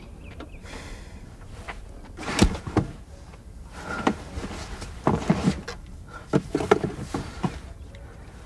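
Irregular knocks, clicks and rustling of things being handled inside a car. The sharpest knock comes about two and a half seconds in, and a cluster follows between five and seven seconds in.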